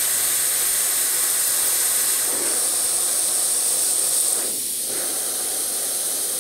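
Gravity-feed airbrush spraying white paint, a steady hiss of air from the nozzle.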